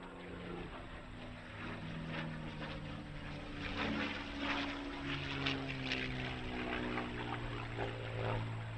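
P-51D Mustang's Packard Merlin V-12 engine and propeller droning in a flypast. It grows louder, with its pitch sliding down about halfway through as the fighter goes by.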